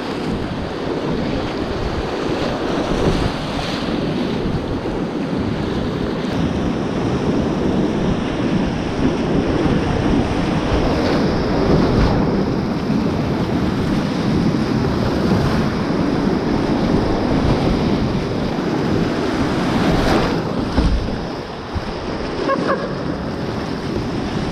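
Whitewater rapids rushing steadily around a kayak, with sharper splashes of water over the boat and camera now and then.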